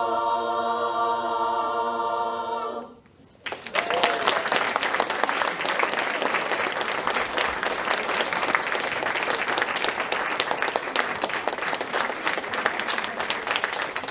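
Women's a cappella barbershop chorus holding the final chord of a song for about three seconds, then cutting off together. After a short silence, the audience breaks into sustained applause with a brief whoop near its start.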